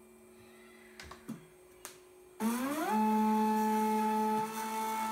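Stepper motors of a 3D-printed six-axis robot arm whining as the arm moves, after a few faint clicks. About two and a half seconds in, the whine rises in pitch as the motors ramp up to speed, then holds steady, and it begins to drop as they slow near the end.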